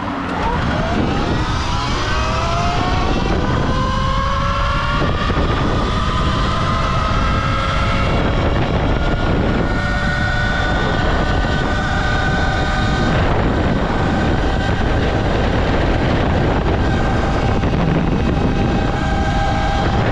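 Electric dirt bike accelerating hard from a start: its motor whine climbs quickly in pitch over the first few seconds, then holds high and steady at speed, wavering a little with the throttle. A heavy low rumble runs underneath.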